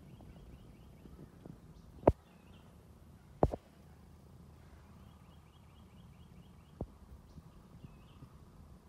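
A small bird sings quick runs of about eight short, high notes, twice. Sharp knocks cut in about two seconds in and again as a double knock a second and a half later, with a lighter one near seven seconds.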